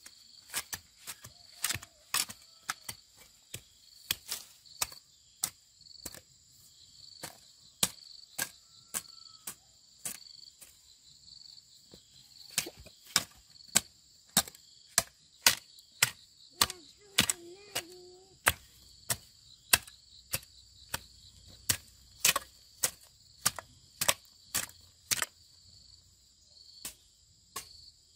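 Hand hoe blade chopping into dry garden soil in a steady rhythm, up to about two strikes a second, the strikes getting louder about halfway through. Insects trill steadily underneath.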